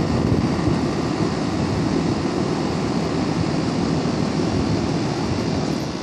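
Outdoor condenser unit of a 2010 Carrier 3-ton central air conditioner with a Copeland scroll compressor, running with a steady, even noise. The unit is malfunctioning: its condenser fan keeps switching on and off while the compressor runs.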